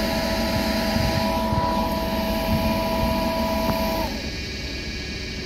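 Railway station noise: two steady high tones held together over a steady rumble, then stopping about four seconds in, leaving the rumble alone.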